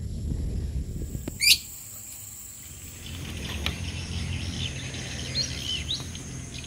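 Birds calling: one sharp, sweeping call about a second and a half in, then a few short whistled chirps later on, over a low rumble.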